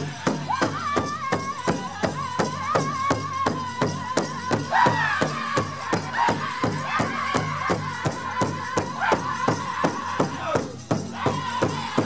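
Powwow drum group: a large drum struck in a steady, even beat, about three beats a second, under high-pitched group singing in long held notes. About five seconds in, the singing swoops down from a higher note.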